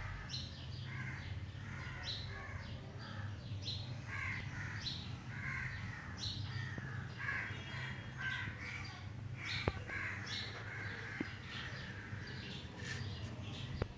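Birds calling over and over in many short, overlapping calls, above a steady low hum, with a couple of sharp clicks a little past the middle.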